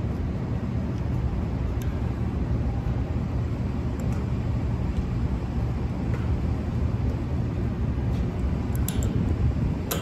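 Steady low rumble with a few light clicks near the end.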